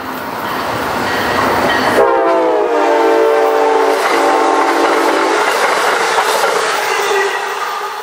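Amtrak ACS-64 electric locomotive and Northeast Regional coaches passing at speed, the rush of wheels on rail growing louder as the train nears. About two seconds in the locomotive sounds one long blast of its horn, several tones together, lasting about three and a half seconds, while the coaches go by.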